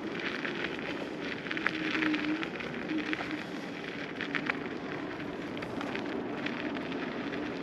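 Ausom L2 Max electric scooter ridden over loose, rough ground: the tyres crackle and tick irregularly over grit and stones, over a steady low hum from the scooter.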